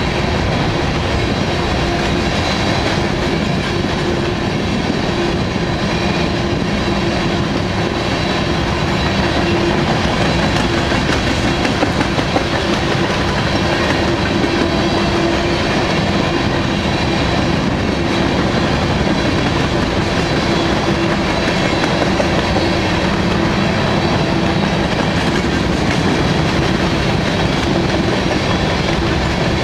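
Norfolk Southern covered grain hopper cars rolling past close by, their steel wheels clicking steadily over the rail joints with a continuous rumble. A few louder clacks come about twelve seconds in.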